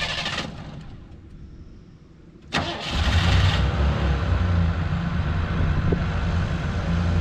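1987 Ford Thunderbird engine being started after a fuel filter replacement. A first bout of cranking stops shortly after the start without the engine catching. About two and a half seconds in the starter cranks again, the engine catches and settles into a steady idle.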